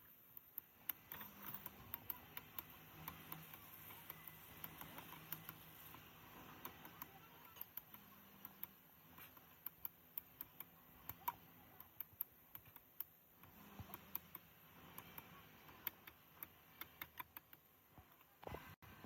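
Faint, irregular light clicks and ticks, as of small metal parts and hand tools being handled, over a faint low hum.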